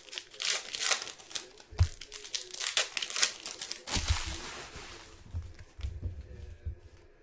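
Trading-card pack wrappers crinkling and tearing as packs are opened by hand, with a few dull knocks of handling; the crinkling thins out after about four seconds.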